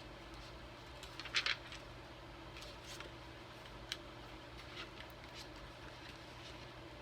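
Light handling sounds of a powder makeup compact being swatched: brief brushing and rubbing scrapes, the loudest about a second and a half in, and a single sharp click a little before the four-second mark.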